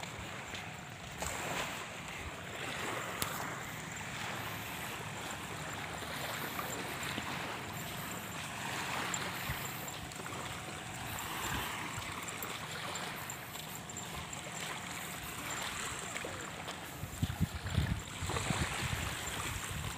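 Small waves washing gently onto a sandy beach in a steady hiss that swells and fades, with wind buffeting the microphone in a few gusts near the end.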